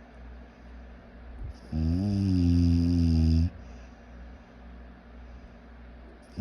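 Snoring: one long, loud snore of nearly two seconds with a low buzzing pitch, starting a little under two seconds in, and the next snore beginning right at the end.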